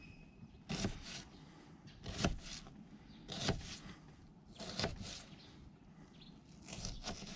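Kitchen knife slicing down through an onion half and tapping the plastic cutting board: five cuts about a second apart, each a short, sharp double tick.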